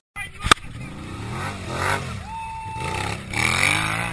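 Quad bike (ATV) engines revving in repeated surges, loudest near the end, with a sharp click about half a second in.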